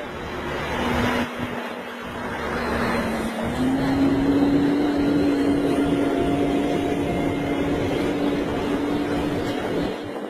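Heavy truck's diesel engine running under load as it pulls a long train of loaded trailers over a dirt road, with a steady droning note that steps up slightly about three and a half seconds in.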